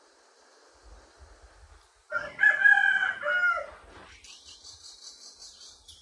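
A rooster crows once, a single call of under two seconds about two seconds in. A faint high, pulsing buzz follows.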